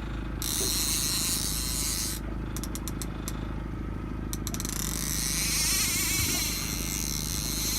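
Boat motor running steadily under a high hiss that comes and goes, with a run of sharp clicks from fishing tackle about two to four seconds in.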